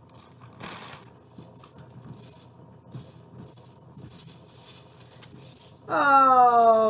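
Loose coins clinking and jingling against each other as they are picked through in a pile, a run of small light clicks. About six seconds in comes the loudest sound, a drawn-out hum of a person's voice that falls slightly in pitch.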